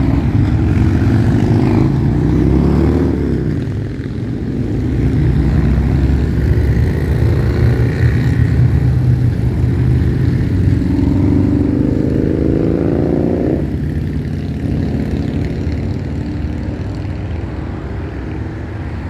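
A stream of motorcycles riding past close by, their engines running loud. Twice a bike revs up with a rising pitch: briefly near the start, and for longer from about eleven seconds until it drops off suddenly near fourteen seconds.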